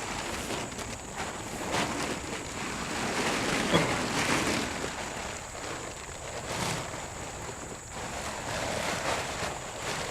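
Plastic tarp rustling and crinkling as it is gathered up around a load of compost and potting soil, with a few louder crackles.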